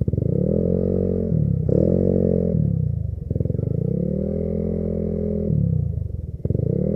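Motor scooter engine revved up and let fall back four times, the pitch rising and dropping with each rev. The longest rev comes in the middle.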